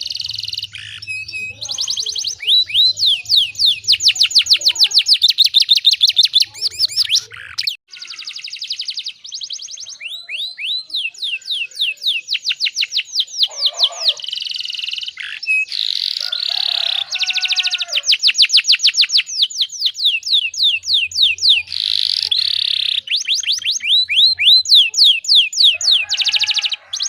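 Domestic canary singing a long song of fast rolling trills, each phrase a rapid run of repeated high notes that changes to a new phrase every second or two, with brief breaks about 8 and 15 seconds in. A faint low hum sits under parts of the song.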